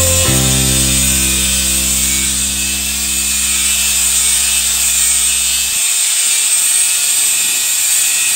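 Background music over the steady high-pitched hiss of a power tool working steel. The music's low notes drop out about six seconds in, leaving the tool noise.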